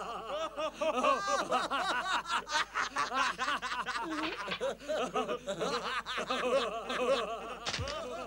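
Several cartoon voices laughing hard and without a break, their rapid 'ha-ha' laughs overlapping. This is the uncontrollable laughing fit brought on by eating 'laughing mushrooms' (funghi della ridarella).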